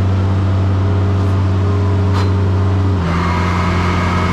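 Large engine running at a steady pitch. About three seconds in, its tone drops slightly and a higher whine joins it.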